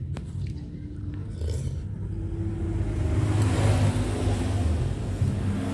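A motor vehicle's engine rumbling nearby, swelling to its loudest about three and a half seconds in and then easing off. A sharp click comes right at the start.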